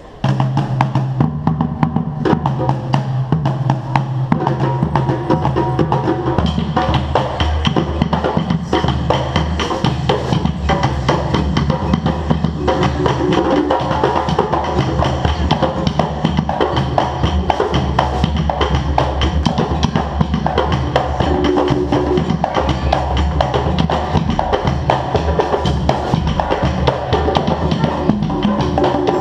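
Percussion band playing a busy, steady drum groove, with deep bass drums under sharp clicking hits; it comes in suddenly at the very start.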